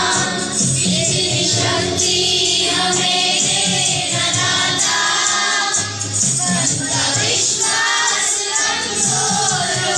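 A group of children singing together in chorus.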